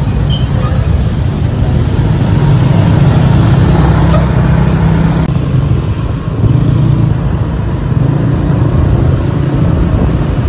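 Moving road vehicle: a loud, steady engine and road rumble, with a brief click about four seconds in.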